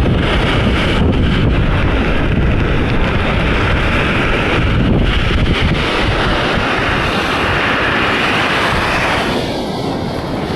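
Baltic Sea waves washing onto the shore in a steady, swelling hiss, with wind buffeting the microphone in a heavy low rumble.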